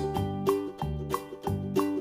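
Upbeat background music with a steady beat: bright keyboard notes over a regular bass.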